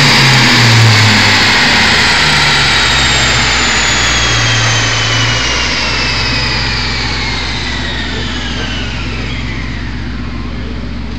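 Ford Mustang on a chassis dyno just after a pull: the engine drops back and idles while a high whine from the still-spinning dyno rollers and drivetrain slowly falls in pitch as they coast down, the whole sound gradually fading.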